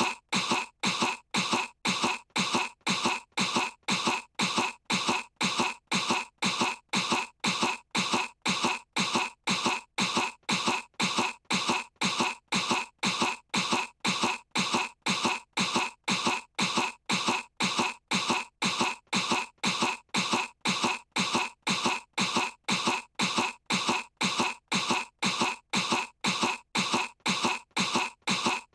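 A little girl's cartoon voice fake-coughing, putting on a cough to seem sick. Short, identical coughs repeat at an even pace, about two a second, as one looped sound.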